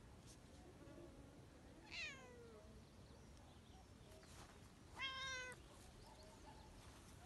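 A cat meowing twice: a call that falls in pitch about two seconds in, and a shorter, steadier meow about five seconds in.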